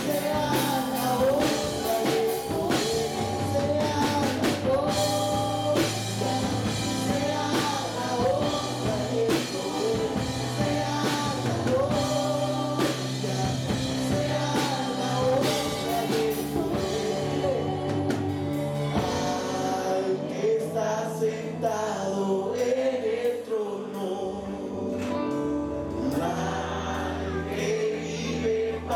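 Live worship band playing a Spanish praise song: a male and a female singer over electric guitar, keyboard, bass and drum kit. After about seventeen seconds the drums drop out and the music turns softer and more sustained.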